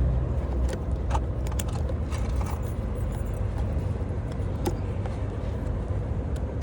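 Light clicks and knocks from handling a child car seat and its fittings as it is pushed into the vehicle seat, over a steady low rumble from a car.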